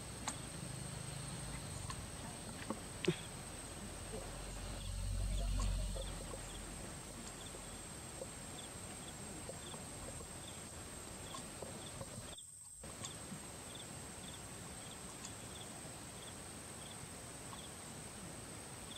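Outdoor ambience dominated by a steady high-pitched insect drone, with short chirps repeating about twice a second through the second half. A low rumble swells and fades around five seconds in.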